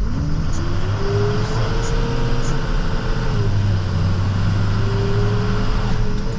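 Snowplow truck heard from the cab as it pulls away, over a steady low engine rumble. A whine rises in pitch over the first second and then holds. It fades out about three and a half seconds in and comes back a second later.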